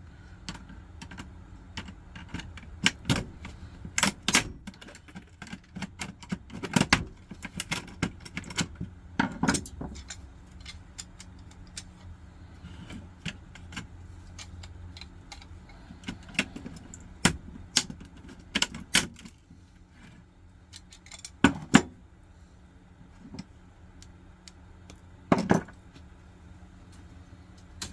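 Screwdriver prying small motors and parts out of a CD/floppy drive's metal chassis: irregular metallic clicks, scrapes and clinks, with a few sharper knocks, over a faint steady hum.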